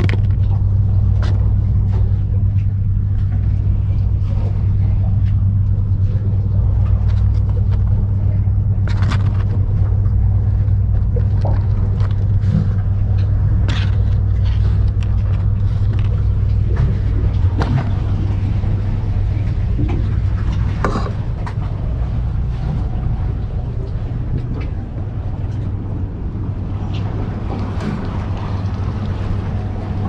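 Steady low mechanical hum, with scattered light clicks and knocks over it.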